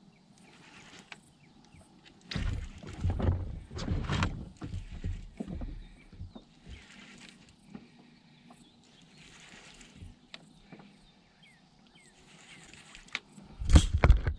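Handling noise in a small fishing boat: low bumps and rumbling as a rod is grabbed and swept up to set the hook on a biting catfish. It comes in two spells, a few seconds from about two seconds in and a short, louder one near the end.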